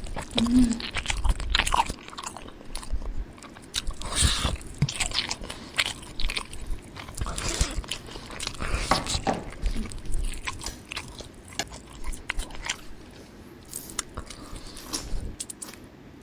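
Close-miked eating: biting and chewing a piece of fish roe, then eating crawfish by hand, heard as many short, irregular mouth clicks and chewing noises.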